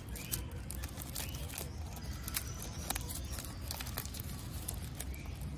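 Foil-lined chocolate truffle wrapper crinkling and crackling as it is peeled open by hand, in many quick irregular crackles.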